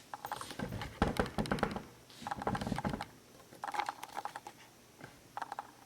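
Packaging crinkling and rustling as it is handled, in four short crackly bursts with pauses between.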